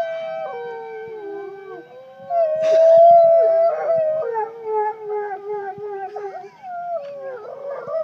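Two dogs howling together in long, wavering, overlapping howls at different pitches, loudest a little over two seconds in, set off by a tornado siren whose steady tone sounds underneath.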